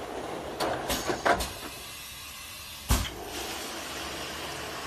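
Automatic inline bottle filling machine and conveyor running with a steady mechanical noise, its mechanisms clacking: a few sharp clacks about a second in, and one loud clack near three seconds followed by a brief hiss.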